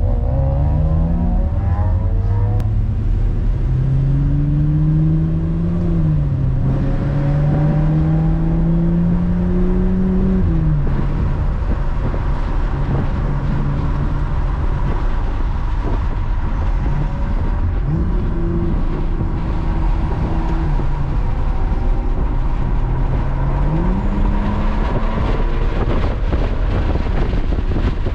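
Lotus Evora's V6 engine heard from inside the cabin, accelerating through the gears: its pitch climbs and drops at each upshift, twice in the first ten seconds, then holds steadier before climbing again near the end, over constant road and tyre rumble.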